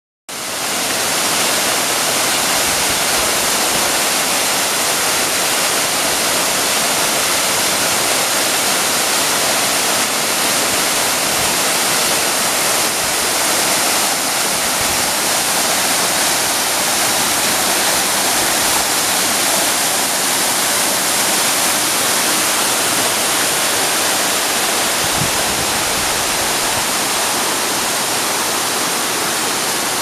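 Small waterfall pouring into a rock plunge pool: a loud, steady rush of falling water that does not let up.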